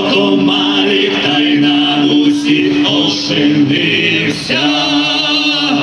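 Vocal ensemble singing a folk song in several-part harmony, ending on a long held chord with vibrato near the end.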